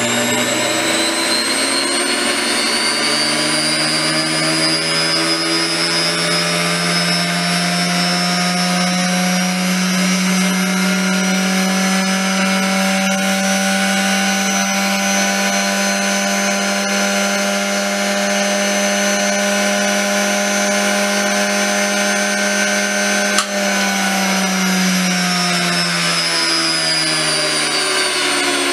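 Luftwaffe Umformer Ln 27381, a rotary converter, restored and running again after cleaning and repair: a steady motor whine that climbs in pitch over the first several seconds as it spins up, holds, then sinks in pitch near the end. A single sharp click comes late on.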